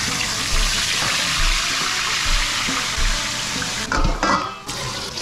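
Fish sizzling in hot oil in a wok: a steady hiss, which stops about four seconds in. Metal tongs then clatter against a stainless steel bowl a few times.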